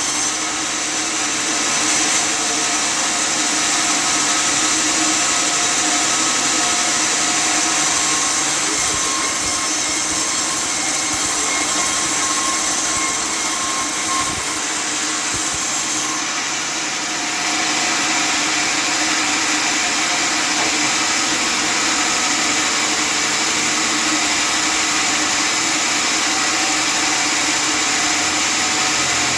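Custom-built table sawmill running steadily as it cuts wood, a continuous loud machine noise that dips slightly for a moment about halfway through.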